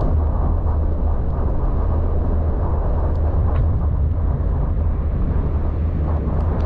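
Steady low rumble of a car on the move: engine and road noise, with a few faint ticks.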